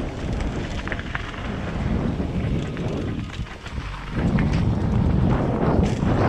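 Wind buffeting a GoPro's microphone while a Trek Slash mountain bike's tyres rumble over a dirt and rock trail at speed, with sharp rattles and clicks from the bike. The noise dips briefly about three seconds in, then comes back louder.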